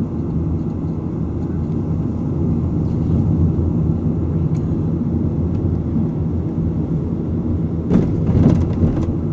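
Steady low rumble of a car's road and engine noise heard from inside the moving car, with a brief louder stretch of knocks about eight seconds in.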